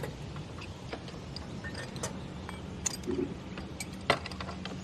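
Light, scattered clicks and ticks of a mechanic's hand tools on metal at a car wheel during a tyre patch. There is a sharper click about four seconds in, over a steady low hum.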